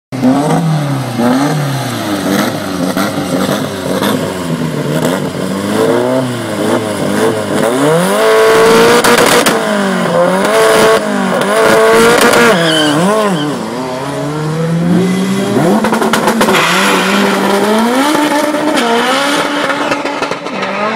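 Honda Civic drag car's engine revving hard and repeatedly at the start line, then held at high revs with crackling. About two-thirds of the way in it launches and accelerates down the strip, its pitch climbing in steps broken by gear changes.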